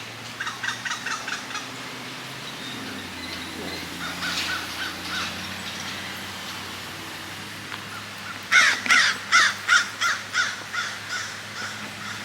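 Crow cawing in quick runs of repeated calls: a short run of about seven caws near the start, a few more in the middle, then a loud run of about a dozen caws that tails off toward the end.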